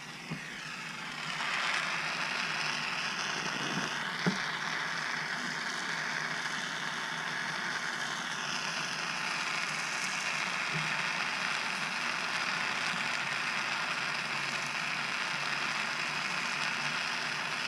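Gas torch flame hissing steadily as it heats a crucible of placer gold to melt it, the hiss building up about a second in. Its tone shifts slightly about eight seconds in, and there is a light knock a couple of times.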